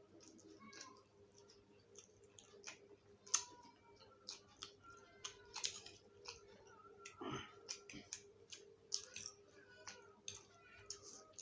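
Mouth sounds of people eating spicy fire noodles: faint chewing with irregular wet clicks and smacks, and one longer slurp-like sound about seven seconds in.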